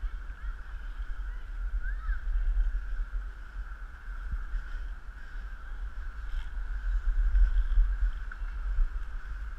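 Wind buffeting a head-mounted camera's microphone: an uneven low rumble that swells and fades, loudest near the end, over a steady high-pitched drone.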